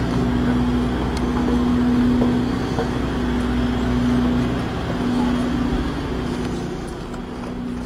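Diesel engines of parked tour buses idling: a steady hum with a constant drone, a little quieter near the end.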